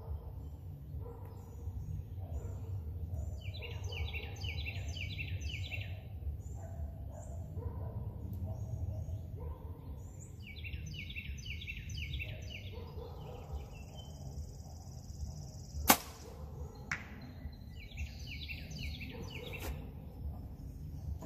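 An Obsession Defcon HZ7 hybrid-cam compound bow is shot once: a single sharp crack about 16 seconds in, then a fainter knock about a second later as the arrow reaches the 80-yard target. Songbirds trill in repeated phrases over a low steady outdoor rumble.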